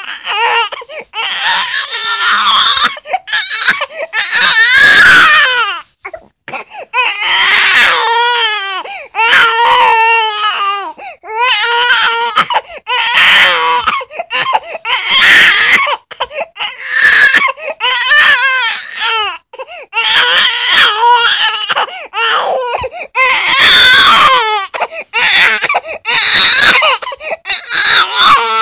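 Baby crying and fussing in repeated high-pitched, wavering wails, each a second or two long with short breaths between.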